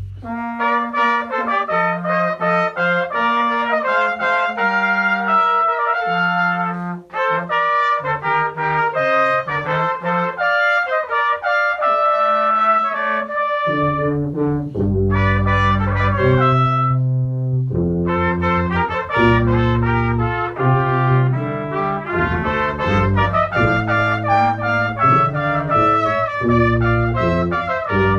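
Brass music led by trumpets playing a melody in quick successive notes. A low brass bass line comes in strongly about halfway through.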